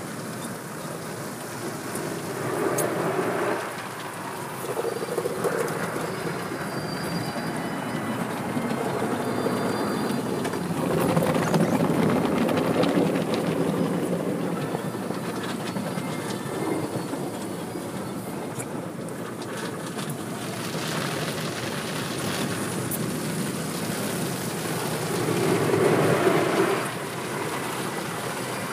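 Automatic car wash heard from inside the car: cloth brushes slapping and rubbing across the windshield and body amid spraying water, a continuous rumble that swells louder a few times, most of all near the end.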